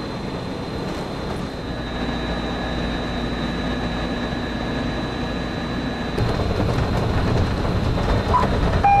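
Walt Disney World monorail train running on its beamway: a steady electric hum with a faint high whine. About six seconds in, the sound jumps to a louder, lower rumble heard inside the train's front cabin.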